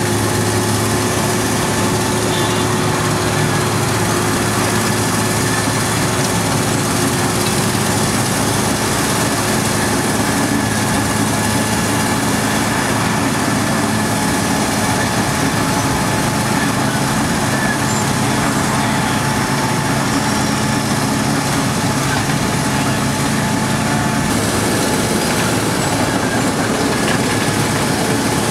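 Wirtgen W120F cold planer running steadily as it mills off old asphalt: a loud, continuous din of the diesel engine and the cutting drum grinding the pavement, with a constant engine hum underneath.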